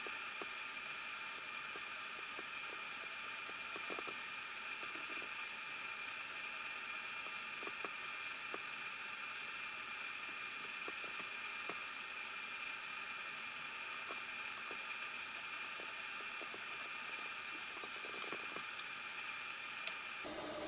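Steady hiss with a faint high whine, and scattered faint light clicks.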